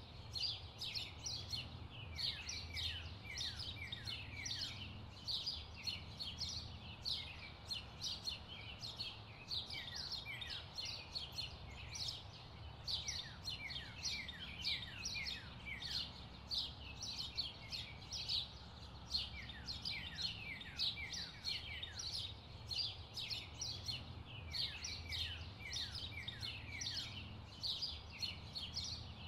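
Birds chirping without a break: many short, quick downward-sliding chirps that overlap, over a faint low steady hum.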